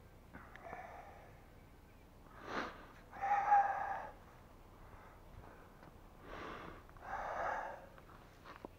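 A person breathing: a quick, noisy sniff-like inhale followed by a longer exhale, twice, about four seconds apart.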